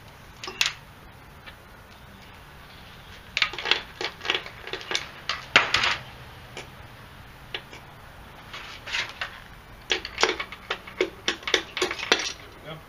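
Irregular metallic clinks and knocks from tools and parts on a Datsun L16 engine block as the number four piston and connecting rod are taken out. They come in two clusters of quick taps, one a few seconds in and another after a short pause.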